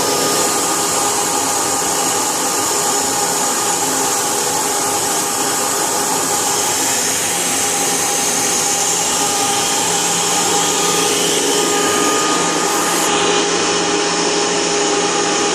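Vacuum cleaner running steadily: an even rush of air with a constant motor whine, unchanging throughout.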